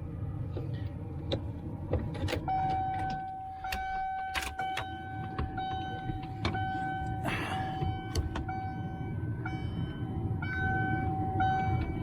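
Ford F-350's cab warning chime, set off by the key in the ignition with the doors open: a steady electronic tone that starts a couple of seconds in and breaks off and resumes several times. Sharp clicks and a short rustle come from the key and steering-column parts being handled, over a steady low rumble.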